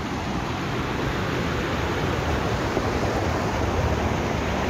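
Water rushing steadily down a small stone-lined stream channel, a constant hiss with a low rumble under it.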